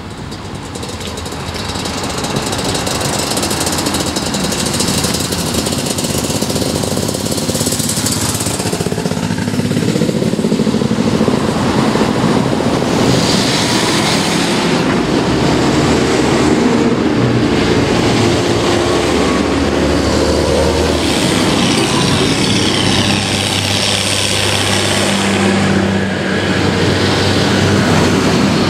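A line of large farm tractors, John Deere among them, driving past one after another with their diesel engines running. The sound builds over the first ten seconds as they come close, then stays loud.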